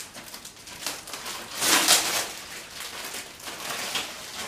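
Protective plastic film being pulled off and crinkled in the hands: a run of rustles and crackles, with one louder crackling rustle about two seconds in.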